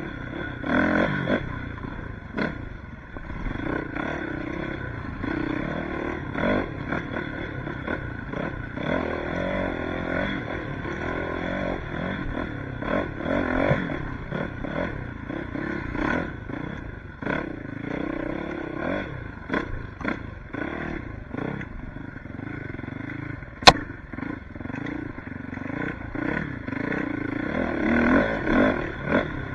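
Suzuki RM-Z450 four-stroke single-cylinder dirt bike engine running under a rider, revving up and easing off again and again, with rattles and knocks over rough ground and one sharp click late on.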